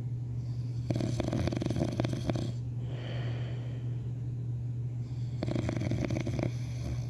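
Snoring: two rattling snores, about a second in and about five and a half seconds in, each lasting one to one and a half seconds, with a softer hissing breath between them. A steady low hum runs underneath.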